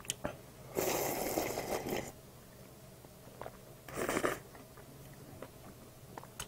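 Slurping instant black-bean noodles straight from a paper cup. The first slurp starts about a second in and lasts about a second; a second, shorter slurp comes about four seconds in.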